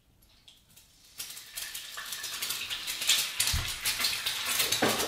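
A quail egg hits hot butter in a nonstick frying pan and starts to sizzle and crackle about a second in, growing louder as it fries.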